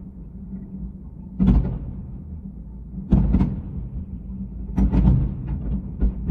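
Aerial firework shells bursting: a series of booms every second or two, some in quick pairs, with smaller pops between them, sped up to double speed.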